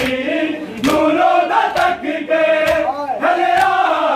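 A crowd of men chanting a Punjabi noha (Muharram lament) together, with loud sharp slaps of chest-beating (matam) falling in a steady beat about once a second.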